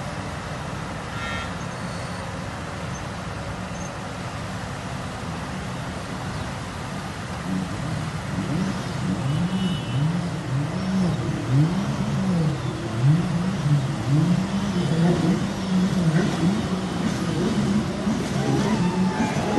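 An engine running steadily, then from about a third of the way in repeatedly revving up and dropping back, each rise and fall lasting about a second.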